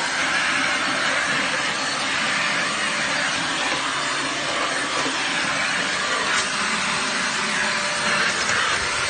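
Deerma DX115C handheld stick vacuum cleaner running with a steady hiss of motor and suction.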